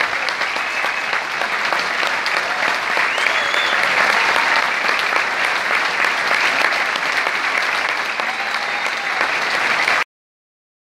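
Theatre audience applauding steadily, a dense patter of clapping that cuts off abruptly near the end.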